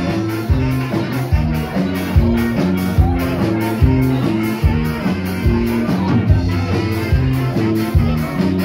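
Live band playing an upbeat number: a steady drum beat of about two hits a second under a moving bass line, with electric guitar and keyboards.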